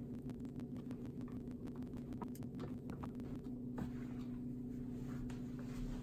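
Small clicks and scraping of a screwdriver and hand on the plastic valve and retainer ring of a Suncast Aquawinder hose reel motor. The clicks come quickly for about three and a half seconds, then thin out, over a steady low hum.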